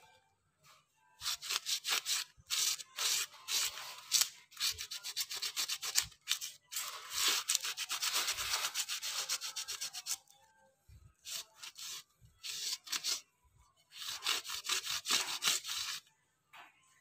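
A dark colouring lump rubbed briskly back and forth over a carved wooden knife sheath, making a dry, scratchy rubbing of quick strokes. It comes in one long run and then two shorter runs, with brief pauses between them.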